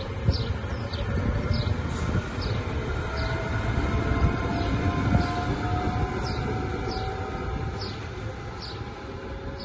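Trenitalia Pop electric multiple unit pulling away from a station: traction motors whine, rising slowly in pitch as it gathers speed, over the rumble of the wheels on the rails. The sound fades a little toward the end as the train moves off.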